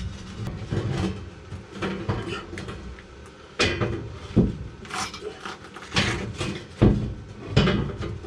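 Irregular metal knocks and clatters from work on the steel tank frame under the bus. They come every half second to a second, heavier from about halfway on.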